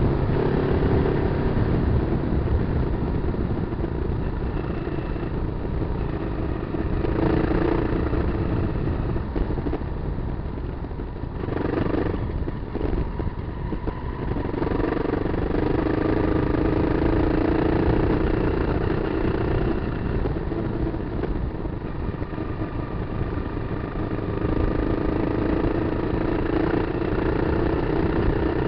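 Kawasaki KLR250's single-cylinder four-stroke engine running under way, its note rising and falling over and over with the throttle.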